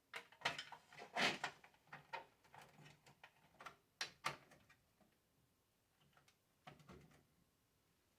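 Sharp clicks, knocks and light scrapes of a cover panel being pushed and snapped into place on a Triangle Tube Prestige Solo 60 boiler, mostly in the first half, with a couple more about four seconds in and near the end.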